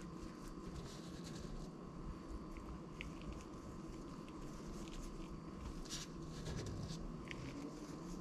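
Faint handling sounds of gloved hands working over a plate of flatbread, with a few light ticks and taps and one brighter click about six seconds in, over a steady faint hum.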